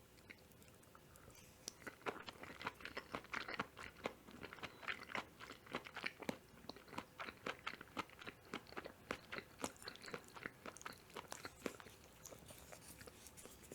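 Close-miked chewing of mushroom carbonara: a steady run of short, moist mouth clicks, several a second. It starts about two seconds in and thins out near the end.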